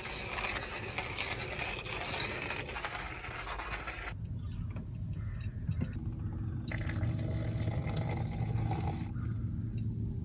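Small backpacking stove on a butane/propane canister, its burner hissing steadily under a metal mug. About four seconds in the hiss stops and a low steady hum is left, with hot water being poured from the mug into an AeroPress.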